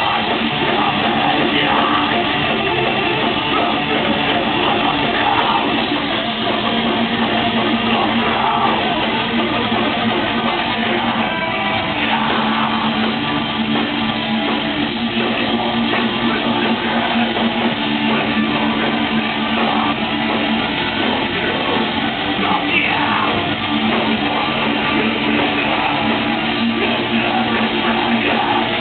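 Live metalcore band playing, with distorted electric guitars, bass and drums, heard as a loud, dense wall of sound through a small recording device's microphone.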